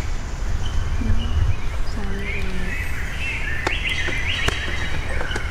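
Outdoor forest ambience: birds chirping over a steady low rumble, with a few sharp clicks in the second half.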